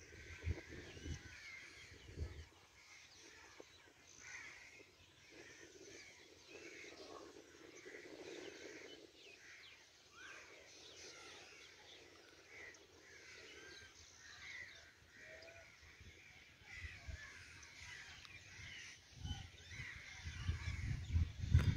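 Many birds calling, crows cawing among them, in short scattered calls. Wind buffets the microphone in low gusts at the start and more strongly near the end.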